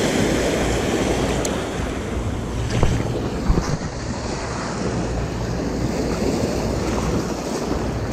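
Small sea waves washing and breaking over a rocky, pebbly shore, with wind on the microphone. A few light clicks come between about one and a half and three and a half seconds in.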